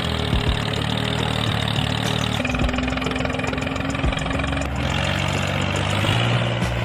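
An engine running steadily, its low tone shifting to a new pitch about two and a half seconds in and again near five seconds.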